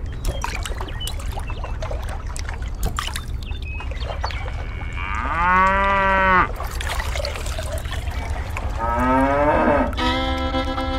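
A cow moos once, a long call about five seconds in that rises and then falls, over a steady low rumble. A second, shorter rising call comes near the end, and fiddle music starts in the last second.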